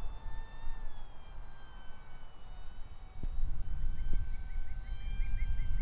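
The XK A290 F16's small 1020 coreless electric motor and propeller whining high overhead, a steady high whine that slowly shifts in pitch as the plane flies about. Wind rumbles on the microphone underneath.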